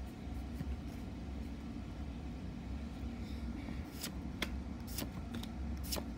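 Trading cards being handled and flipped in the hand, with several sharp card snaps from about four seconds in, over a steady low hum from a running generator or heater/air-conditioning unit.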